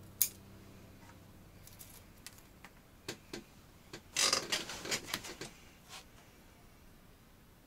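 A sharp snip of bonsai pruning shears cutting a Korean hornbeam twig, then a few light clicks and, about four seconds in, a second or so of rustling of leaves and twigs.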